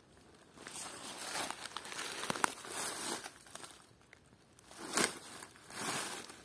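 Dry fallen leaves crunching and rustling underfoot in uneven stretches, with louder crunches about five and six seconds in.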